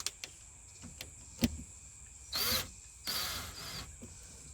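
A screwdriver tightening a worm-drive hose clamp over a hose patch on a water pipe: small metal clicks and one sharp tap, then two short rasping, squeaky bursts as the clamp screw is turned.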